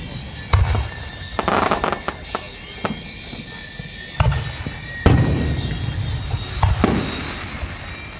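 Aerial fireworks shells bursting overhead: a series of sudden booms, about six in eight seconds, the loudest about five seconds in. A quick run of crackling comes about a second and a half in.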